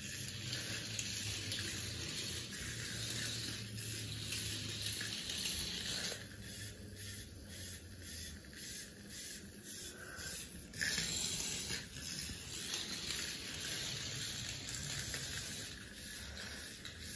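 Remote-controlled toy snake moving over a tile floor: a steady, even noise, with a run of quick, regular ticks midway.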